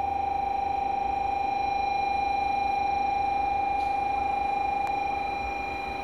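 A steady electronic tone held on one pitch, easing off slightly near the end: the platform's warning signal for an approaching Shinkansen train.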